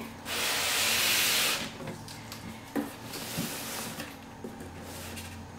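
Packing material rustling and scraping against a cardboard box as contents are pulled out of a serger's packaging: a loud rush lasting about a second and a half, a knock, then a quieter stretch of rustling.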